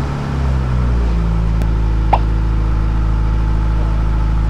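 Car engine idling, its pitch settling during the first second and then holding steady, with a single brief click about two seconds in.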